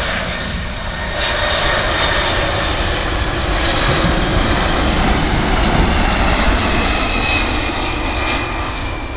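Jet noise of a Boeing 747-400's four turbofan engines as the airliner flies past low on final approach: a loud rush with a high whine, growing to a peak about six seconds in, then easing as the whine drops slightly in pitch.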